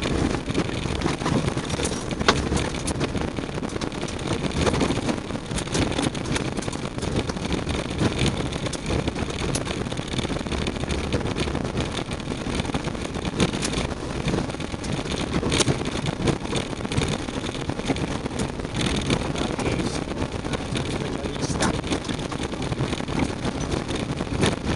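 Off-road vehicle driving over loose gravel and stones, heard from inside the cab: steady low engine and tyre noise, with frequent irregular knocks and rattles as the tyres roll over the stones.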